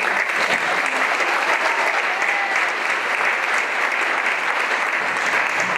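Audience applauding, dense steady clapping that starts as a song ends.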